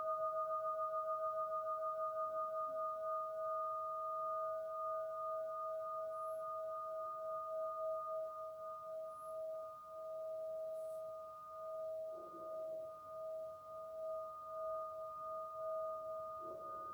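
A crystal singing instrument ringing with one steady pure tone and a fainter higher overtone, pulsing in a quick wobble that slows as the ring slowly fades.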